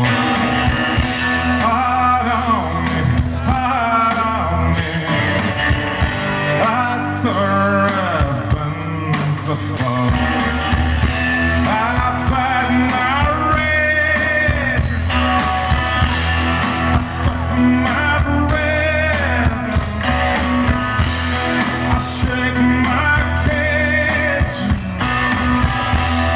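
Live rock band playing: a man sings a lead vocal at the microphone over electric guitar and bass.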